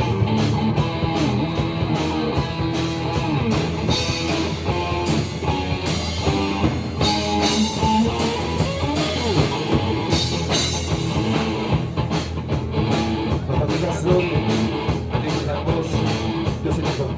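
Rock band playing an instrumental break in a blues song: guitar lines over bass and a steady drum-kit beat.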